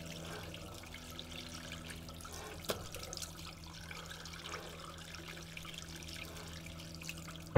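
Water running faintly from a tap into a bathroom sink, with small splashes and trickles. There is a brief sharper click about a third of the way in, and a low steady hum underneath.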